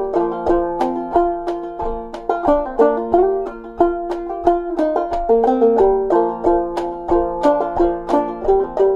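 Open-back banjo played clawhammer style: a brisk, even stream of plucked notes over a steady drone, in Double C tuning pitched lower than C.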